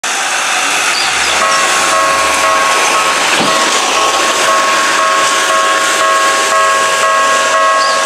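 Japanese railway level-crossing alarm starting about a second in: an electronic bell ringing a two-tone ding about twice a second, the warning that a train is coming and the barriers are about to lower. Under it runs a loud steady hiss.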